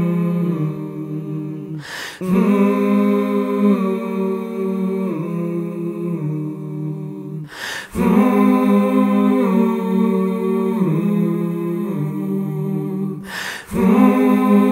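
A cappella vocal music: a voice humming long held notes that step up and down in pitch, in phrases of about five to six seconds. The phrases break off briefly three times, with a short rush of noise in each gap.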